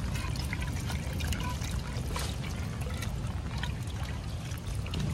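Water pouring and trickling, with small splashes, as freshly caught fish are washed by hand. A low steady rumble runs underneath.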